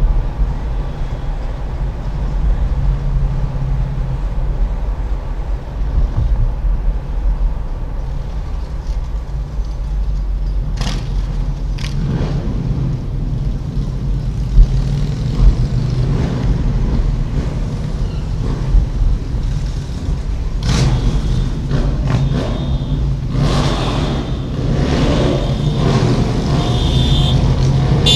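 Dashcam recording from inside a moving car: a steady low rumble of engine and road noise. About halfway through come two sharp knocks. In the last third, motorcycles riding just ahead add louder, rough engine surges.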